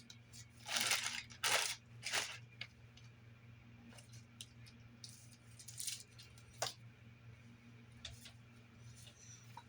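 Several short handling noises, brief scrapes and clicks, over a faint steady electrical hum.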